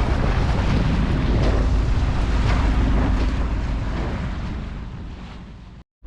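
A sailboat's inboard diesel engine running steadily under way, with wind on the microphone and water noise over it. The sound fades out near the end.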